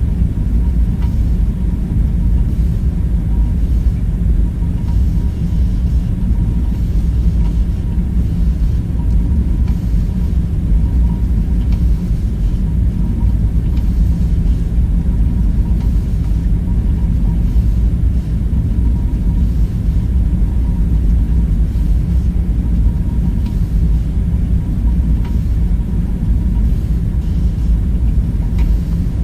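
Steady deep rumble of a background ambience drone, unchanging throughout, with a faint thin steady tone above it and a few faint ticks.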